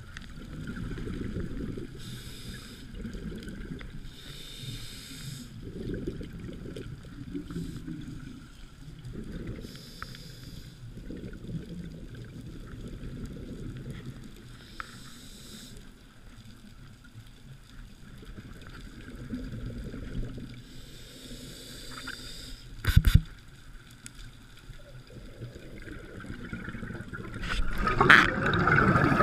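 Muffled underwater sound through a camera housing: a scuba diver's regulator breaths with bursts of exhaled bubbles every few seconds over a low rumble. A sharp knock about three-quarters of the way through, and a louder rush of bubbles at the end.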